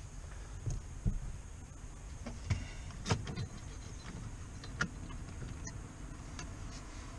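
A handful of light, scattered clicks and knocks of toggle switches and their wiring being handled and pressed into a switch panel under a car's dashboard.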